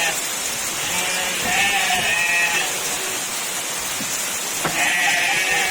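Heavy rain hissing steadily, with goats bleating twice: one bleat about a second and a half in, another near the end.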